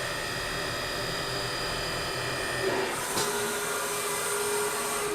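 CNC milling machine running a cutting job, a steady whine of many tones from the spindle. About three seconds in, a new tone and a high hiss join in.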